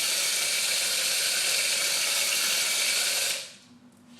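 Compressed air from an air compressor's trigger blow-gun adapter rushing through a homemade pill-bottle-and-pen-barrel airsoft gun to fire BBs at low pressure. It is a steady loud hiss that cuts off about three and a half seconds in.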